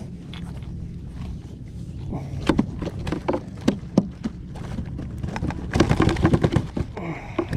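Irregular knocks and clatter on a kayak, thickening into a rapid run of knocks about six seconds in, over a steady low background of water and wind.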